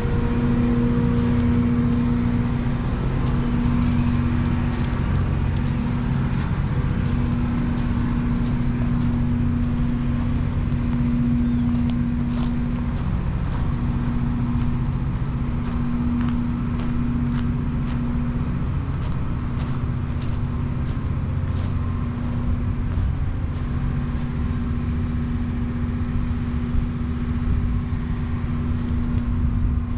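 Loram RG-401 rail grinder's diesel engines running with a steady drone and low rumble, with many sharp clicks.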